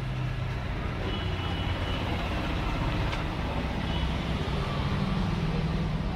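Steady background noise with a low hum under it, even in level throughout.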